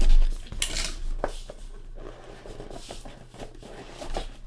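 Hands handling a cardboard trading-card box: a thump at the start, then scraping, rustling and small clicks from the box and its packaging.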